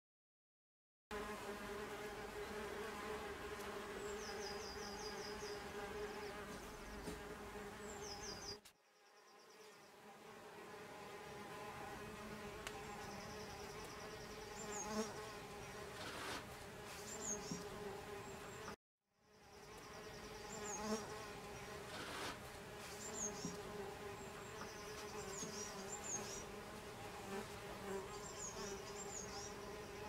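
Mason bees buzzing in flight around their nesting tubes: a steady, pitched hum. It breaks off briefly twice. Short high chirps and trills sound over it.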